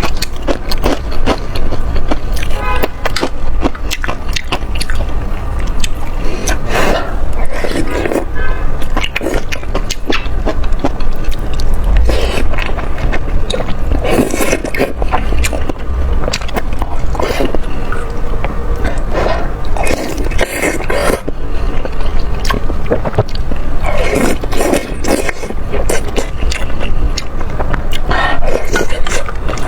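Close-miked eating sounds of spicy noodles and dumplings being chewed, with many small clicks and smacks in quick succession, over background music.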